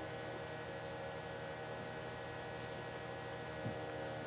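Steady low electrical hum and hiss: room tone with the recording device's own noise, and a faint knock near the end.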